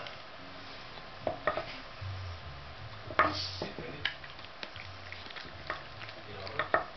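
Wooden blocks knocking and clattering against a wooden dog puzzle board as a dog noses them off the holes and a hand sets them back. About eight separate short knocks, the loudest about three seconds in and a quick pair near the end.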